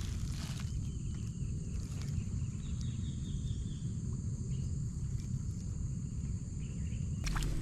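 Outdoor ambience of insects singing in steady thin high tones over a low rumble, with a short run of chirps a little under three seconds in and a louder rustling noise near the end.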